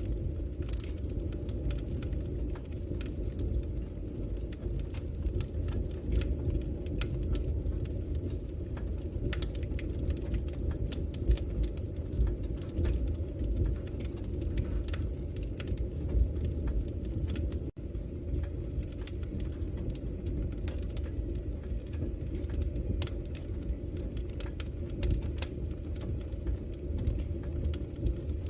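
Campfire burning: a steady low rush of flames with frequent sharp crackles and pops from the burning wood, broken by a split-second dropout about two-thirds of the way through.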